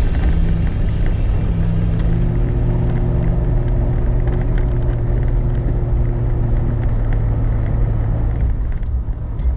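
Vehicle engine and tyre noise heard from inside the cab while driving an unpaved backcountry road: a steady low drone with scattered light ticks and rattles.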